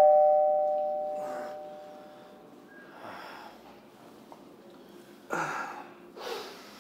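Two-note ding-dong doorbell chime, a higher note then a lower one, ringing out and dying away over about two seconds. A few soft, short noises follow about five and six seconds in.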